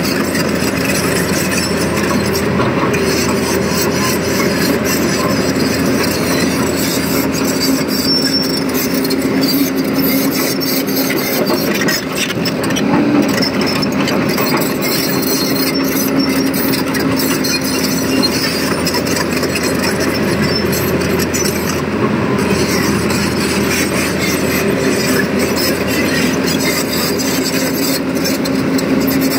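Tata Hitachi Zaxis 220LC-M crawler excavator's diesel engine running steadily close by, a constant drone with a clear humming tone, with light clicks and rattles throughout.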